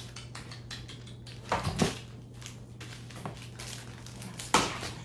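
Rustling and light clattering of items being handled in a package, with two louder crinkly bursts, about a second and a half in and near the end, over a steady low hum.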